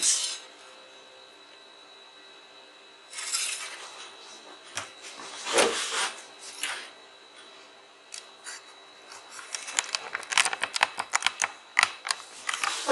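Handling noise: an LED backlight strip and other objects sliding and scraping on a desk, a couple of rubbing scrapes, then a run of light clicks and rattles over the last few seconds.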